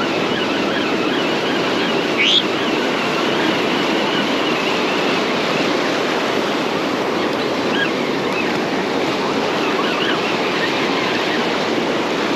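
Ocean surf breaking and washing up the beach in a steady rush, with a brief high rising squeak about two seconds in.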